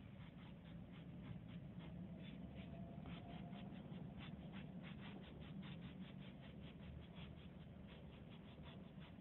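A bristle brush scrubbing a thin sand-filled decorative glaze across a smooth panel: faint, quick scratchy strokes, several a second, in an even rhythm.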